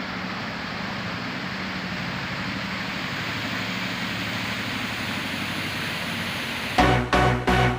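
Water fountain jets splashing, a steady rushing hiss. Electronic music with a regular beat cuts in near the end.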